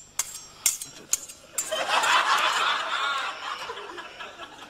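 A few sharp metallic clinks of a utensil against a pan. About a second and a half in, an audience breaks into laughter, loudest around two seconds in, then fading.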